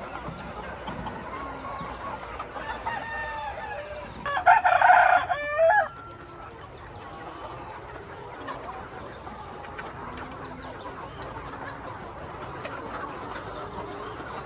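A rooster crows once, loudly, for about a second and a half starting about four seconds in, over a flock of chickens clucking.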